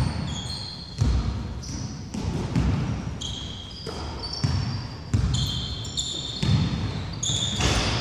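Basketball bouncing on a wooden indoor court, a thud about once a second at an uneven pace, with short high squeaks of sneakers on the floor between the bounces.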